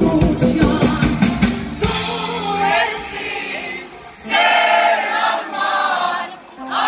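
Live band playing, with rapid drum-kit hits and electric bass, until the band drops out about two seconds in. From about four seconds many voices sing the melody with little or no accompaniment, an audience singing along.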